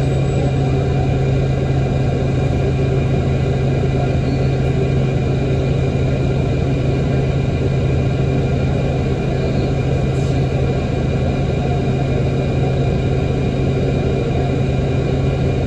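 Diesel city bus engine idling, a steady low rumble heard from inside the passenger cabin, with a faint steady whine above it.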